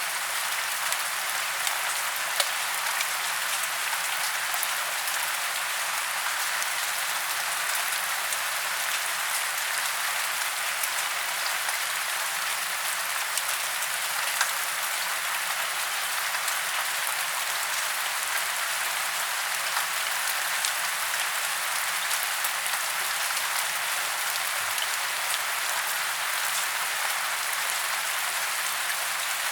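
Steady rain falling on leaves and branches in woodland, an even hiss with scattered sharper drop hits.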